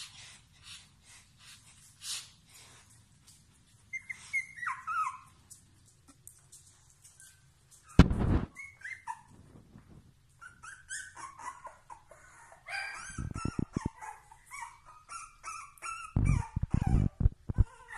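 Beagle puppies whimpering and yipping in short, high whines that bend in pitch, a few around four and nine seconds in, then a steadier run of them over the last seven seconds. Heavy thumps come about eight seconds in, the loudest sound, and again in clusters near the end.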